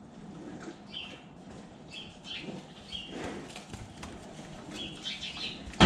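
Cattle moving about and lowing, with scattered knocks and short high blips, then a sudden loud rush of noise right at the very end.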